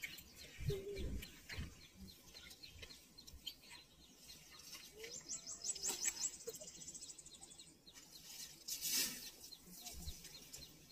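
Wild birds chirping and calling, with a rapid high trill about five seconds in. A few low thumps and a short rush of noise come through as well.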